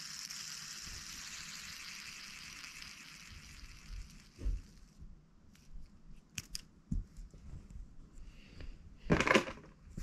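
Hands handling an orange squeeze ball and other fidget toys: scattered soft clicks, taps and rustles, with a louder rustling thump about nine seconds in. A steady hiss runs under the first half and cuts off suddenly about halfway.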